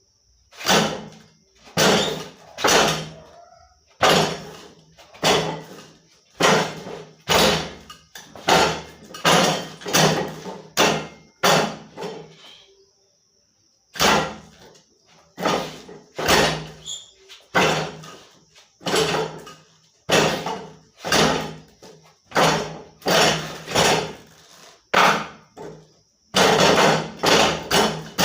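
Wing Chun wooden dummy (mook jong) being struck by a practitioner's arms and hands: a run of sharp wooden knocks, mostly in pairs and quick clusters. There is a short pause about halfway through, and a fast flurry of strikes near the end.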